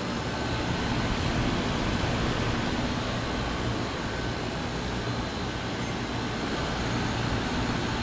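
Window-type air conditioner running with its cover off: the fan motor spinning the blower and condenser fan, a steady rush of air over a low hum. It is on a test run on a newly fitted universal control board.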